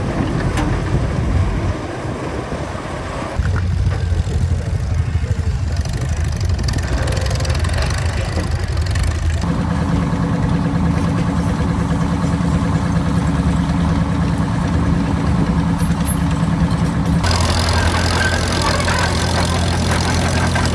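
Engines of antique construction machines running, one after another: the sound switches abruptly several times between different engines, each steady, some lower and some with a higher hum.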